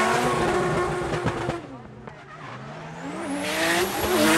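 Drift cars sliding in tandem, one of them a Mazda RX7 FC with its rotary engine: engines revving with rising and falling pitch over screeching tyres. The sound drops away about a second and a half in and swells again as the cars come back past, near the end.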